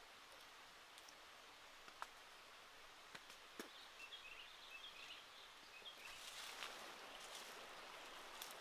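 Near silence: faint forest ambience with scattered soft clicks and leaf rustles, busier from about six seconds in, and a faint bird twitter about four seconds in.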